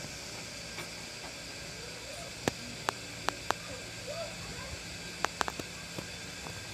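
A series of about eight sharp clicks or taps in two clusters over a steady hiss.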